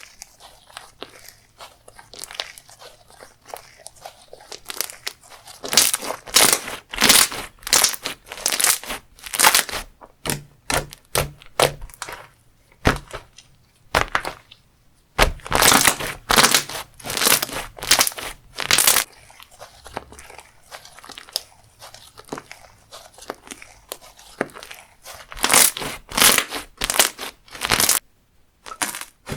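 Hands squeezing, pressing and stretching a crunchy textured slime, giving dense crackling and crunching pops in runs, with quieter stretches of softer squishing between.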